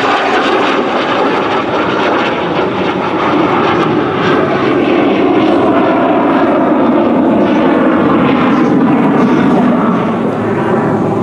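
Engine noise from a Frecce Tricolori Aermacchi MB-339 jet (single Viper turbojet) flying aerobatics: a loud, steady rushing sound with a faint whine, growing a little louder in the middle.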